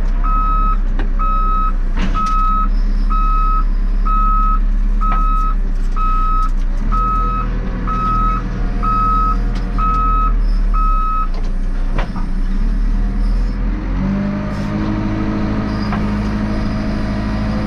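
JCB 3CX backhoe loader's diesel engine running under work while its reversing alarm beeps about once a second, stopping about eleven seconds in. A couple of sharp knocks come through, and near the end the engine revs up under load.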